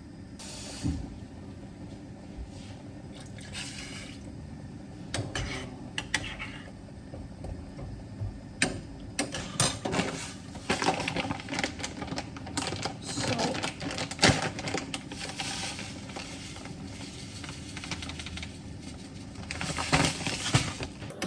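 Water being poured into a pot of vegetables, with scattered clinks and knocks of cookware and utensils.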